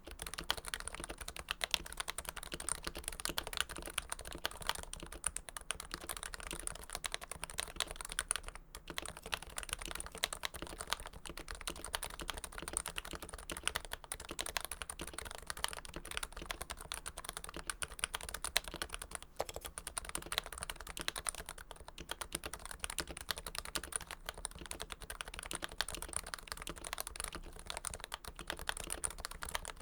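Continuous typing on a lubed Topre keyboard: Realforce Hipro plate in a first-generation Realforce TKL case, its Topre switches lubed with Krytox 105. Fast, steady keystrokes, broken by a couple of brief pauses.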